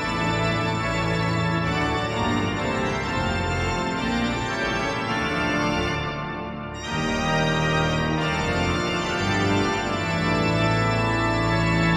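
Pipe organ playing a psalm tune in sustained chords: the 1743 Hinsz organ of the Bovenkerk in Kampen, heard through the Sweelinq virtual pipe organ's samples. About six seconds in, the sound thins briefly between two lines of the tune, then resumes fuller with a stronger bass.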